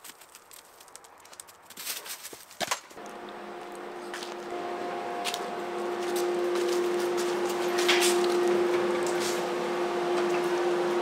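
A steady machine hum with a clear low tone fades in about three seconds in and grows louder, like a motor or fan running in a workshop. A few sharp clicks and knocks come just before it.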